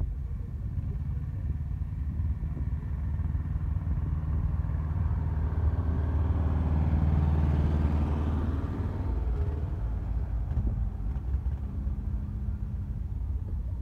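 Small vintage tractor engine running as the tractor drives up close past, growing louder to a peak about seven or eight seconds in, then fading as it moves away.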